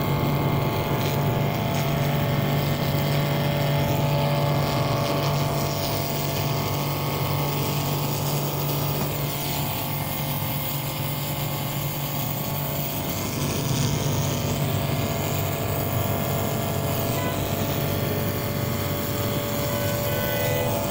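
A 1.5 hp electric high-pressure plunger pump running steadily at about 105 bar, its motor humming, with the hiss of the water jet from the spray lance over it.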